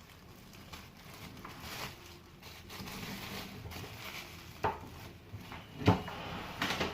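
Scattered light knocks and clatter of household objects being handled, with two sharper knocks in the second half; the second is the loudest.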